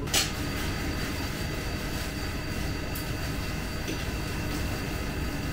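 Steady background drone, like a fan or machine running, with a few faint high whining tones over it. A short sharp click comes just after the start.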